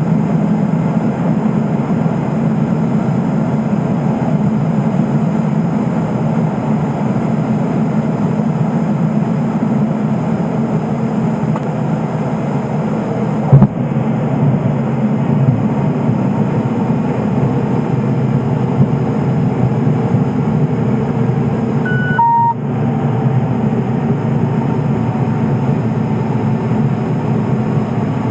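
Cabin sound of a Cessna P210 Silver Eagle's Rolls-Royce 250 turboprop and propeller running steadily during the landing. A single thump comes about halfway through as the wheels meet the runway, and a short electronic beep sounds later on.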